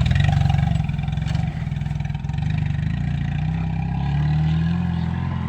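A vehicle engine running steadily with a low drone. Its pitch shifts slightly, and there are a couple of brief knocks in the first half.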